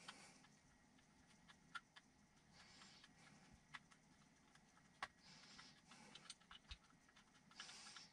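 Faint, irregular clicks and ticks of small metal parts and screws being handled during hand assembly of a spring rate gauge, with soft breaths every couple of seconds.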